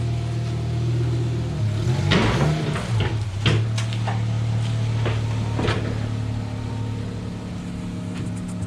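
Car engine idling steadily while the car is driven slowly into position over a portable car lift, with several knocks and clunks about two to three seconds in and again around five to six seconds.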